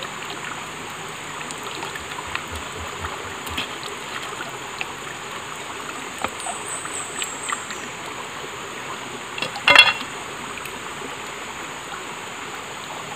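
Small forest stream running steadily, with scattered small ticks and a steady high whine. A brief, louder burst of noise comes about ten seconds in.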